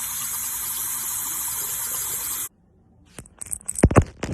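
A loud, steady rushing hiss that cuts off suddenly about two and a half seconds in, followed by a few faint clicks and a sharp thump near the end.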